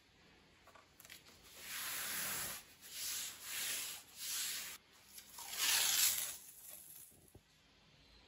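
A hand rubbing across a large sheet of watercolour paper: five papery strokes, each about a second long, the last the loudest.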